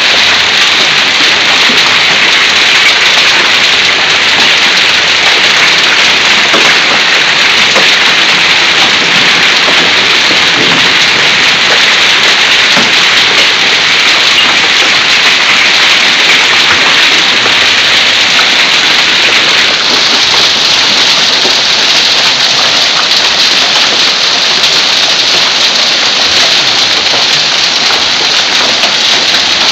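Hailstorm: hail and heavy rain pelting down on pavement and lawn, a loud, steady hiss.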